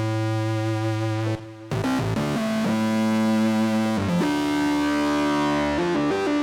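Roland JD-800 synthesizer sounds from the Zenology Pro software emulation playing a preset: long held notes and chords that change every second or two, with a short break about one and a half seconds in and a wavering, shimmering note near the end.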